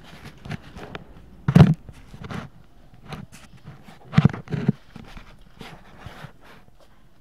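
Two dogs play-wrestling on a carpet: irregular scuffling, with a few short loud bursts from the tussle. The loudest comes about one and a half seconds in, and two come close together about four seconds in.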